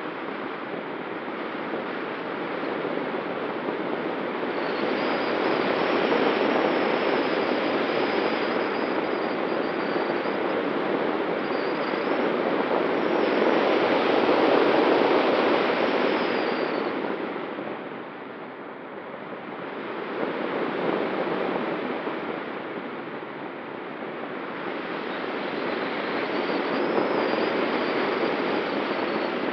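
Air rushing over an ASW 19 sailplane's wing and the camera mounted on it in gliding flight, a steady wind noise that swells and eases with the airflow. It dips briefly about two-thirds of the way in, and a faint high whistle comes and goes.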